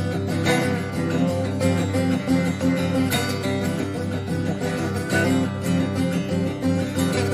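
Instrumental music led by plucked acoustic guitar.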